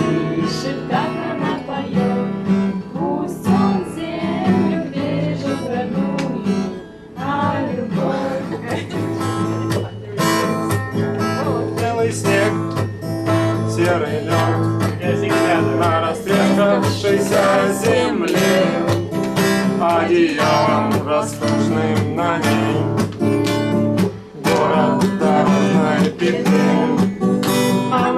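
Acoustic guitar strummed as accompaniment to voices singing a song, with a couple of brief pauses.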